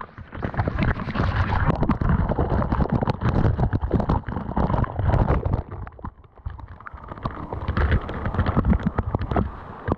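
Rumbling wind and water noise on a camera microphone, with many irregular knocks and a brief drop about six seconds in.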